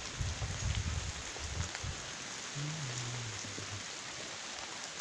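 Steady rain falling, an even hiss, with low rumbles in the first two seconds and a short low hum a little past halfway.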